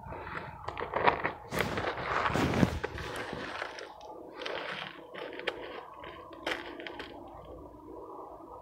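Mothballs being crushed and crumbled by hand in a plastic bowl: crunching, crackling and scraping, loudest over the first few seconds, then lighter, sparser crackles.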